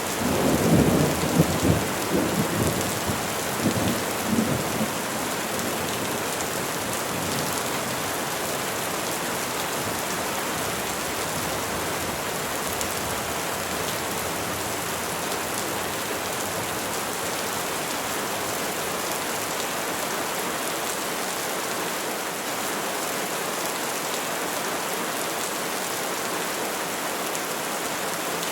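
Steady rain falling on trees, with a low, uneven rumble of thunder in the first few seconds that dies away by about five seconds in.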